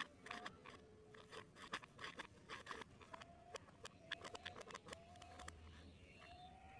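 Faint clicks and light scrapes of a plastic pipe being handled against a small popsicle-stick tower, with faint short rising chirps now and then behind them.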